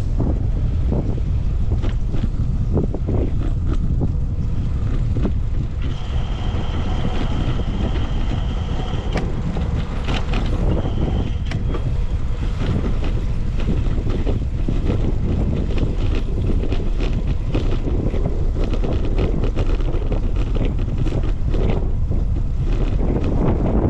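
Wind rumbling steadily on the microphone of a moving bicycle, with scattered rattles and clicks. A high steady whine comes in about six seconds in for about three seconds, then again briefly.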